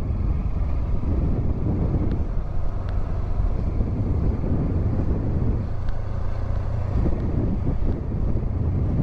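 Honda CB500X parallel-twin motorcycle riding at low speed: a steady engine rumble mixed with wind buffeting the rider's microphone.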